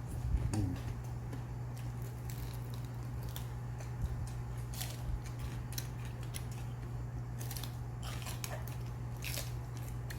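Close-up eating sounds: chewing and crunching food, with scattered short clicks of utensils against dishes and a steady low hum underneath.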